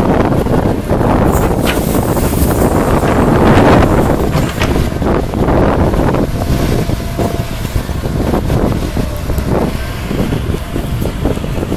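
Liebherr 934 crawler excavator working: its diesel engine runs under load with the hydraulics as it empties earth into a tipper truck near the start, then swings and digs into the soil near the end, with scraping and clatter of dirt and stones. Wind on the microphone.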